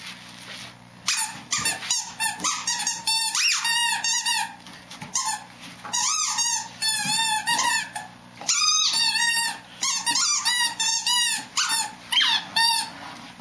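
A small rubber squeaky toy squeaking over and over as a Greater Swiss Mountain Dog chews and squeezes it in its jaws. The squeaks are short and high and come in quick runs of several at a time, with brief pauses between the runs.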